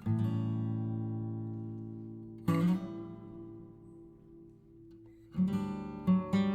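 Background music on acoustic guitar: a strummed chord at the start and another about two and a half seconds in, each left ringing and dying away, then rhythmic strumming picks up again near the end.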